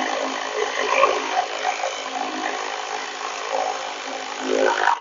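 Slow-rotating power ratchet running steadily as it drives a quick-release bolt down on a bunker board clip.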